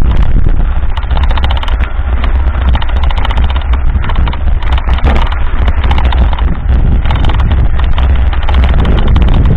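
Heavy wind buffeting on the camera's microphone, with a fast, uneven clatter of a mountain bike jolting over a rough dirt trail.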